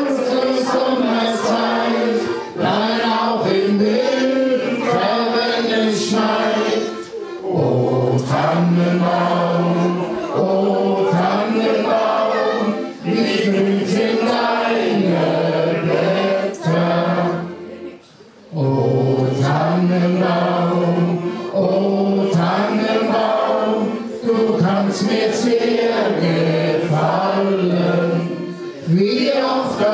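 A group of voices singing a song together, children's voices among them, with long held notes. The singing breaks off briefly about two-thirds of the way through, then the same tune starts again.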